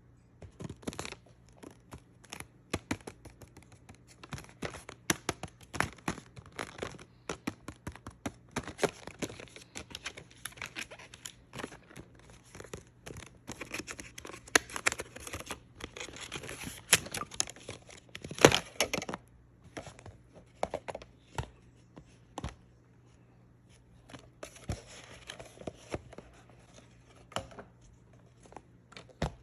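Barbie doll packaging being opened: cardboard and plastic crinkling and tearing, with many small irregular clicks and scrapes and one sharp snap about two-thirds of the way through.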